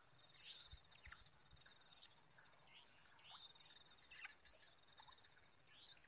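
Faint swamp ambience: a steady, high-pitched insect trill, with short chirping calls scattered through.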